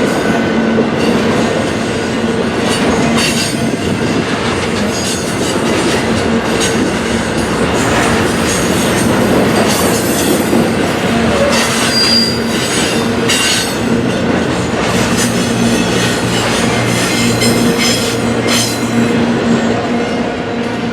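A freight train's cars rolling past, steel wheels clattering over the rails with a steady squeal.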